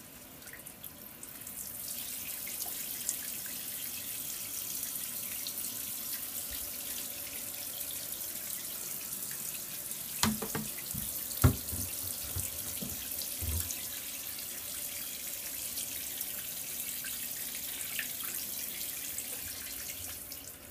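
Water running from a handheld shower head into a bathtub: a steady hiss that starts about two seconds in and stops just before the end. Two knocks a little past halfway, the second the loudest.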